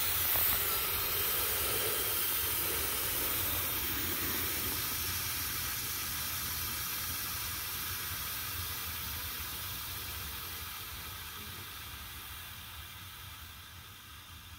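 Instant Pot electric pressure cooker venting steam through its release valve in a quick pressure release: a steady hiss that slowly fades as the pressure drops.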